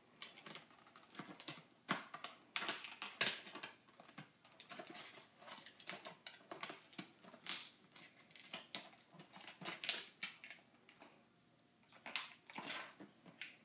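Plastic packaging of a diecast model car being worked open by hand and with a small tool: irregular clicks, scrapes and crinkles, with a brief pause near the end.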